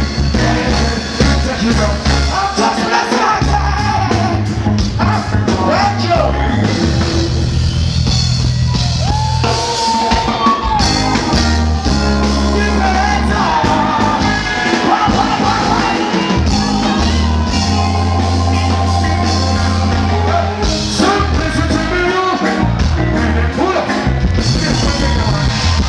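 Live reggae band playing loud through a concert PA: a deep, heavy bass line and drums, with a male singer's voice over the music at times.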